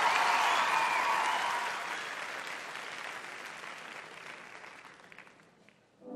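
Large theatre audience applauding, the applause dying away steadily until it is almost silent near the end.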